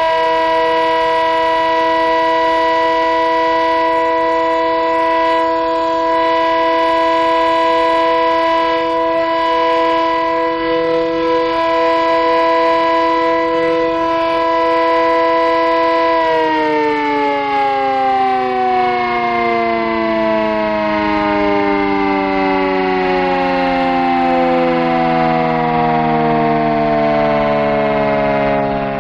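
Vintage WWII air raid siren sounding a steady, unwavering note for about sixteen seconds, then winding down, its pitch falling smoothly as it slows.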